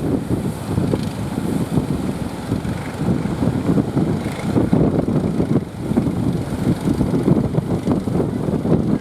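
Strong wind buffeting the microphone, a dense low rumble that rises and falls quickly, over the wash of heavy surf.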